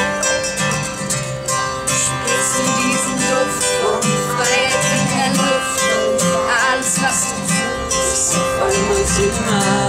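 Acoustic guitar strummed in a steady rhythm, opening a song, with wordless singing over it.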